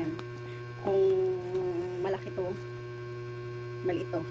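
Steady electrical mains hum. A woman's voice makes a drawn-out hum about a second in and a few brief vocal sounds later.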